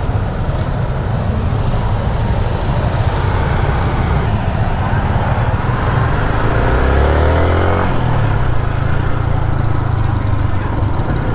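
Motorcycle engine and road noise while riding, steady for most of the time; a little past halfway the engine revs up with a rising pitch, then eases off.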